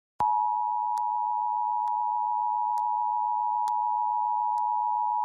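Emergency Alert System attention signal: a steady alert tone that starts a fraction of a second in and holds unbroken, with faint ticks about once a second.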